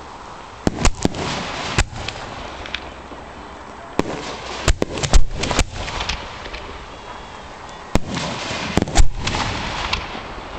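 Four- to six-inch firework mortar shells going off in three clusters of sharp bangs, about four seconds apart, each followed by a crackling hiss.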